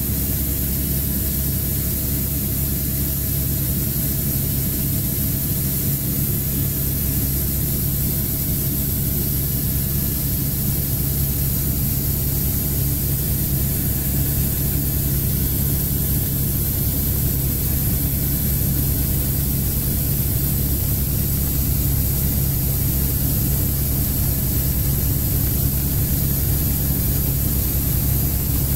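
Helicopter turbine engine and rotor running steadily under take-off power, heard from inside the cabin: a low rotor drone with a steady high turbine whine over it, growing slightly louder as the aircraft climbs.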